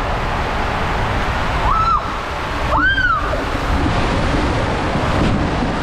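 Water rushing and splashing through an enclosed water slide tube as a rider slides down it. About two and three seconds in, two short high squeals rise and fall in pitch.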